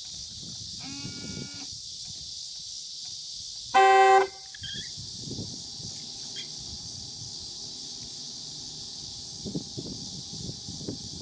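Car horn of a 2003 Saab 9-5 sounding in one short, loud blast about four seconds in, with a fainter short tone about a second in. A steady high hiss runs beneath.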